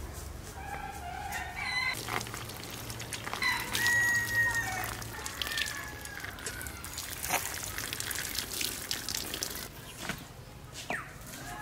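A rooster crowing about three to four seconds in, with other chicken calls before it and a falling call near the end. A few sharp knocks come in between.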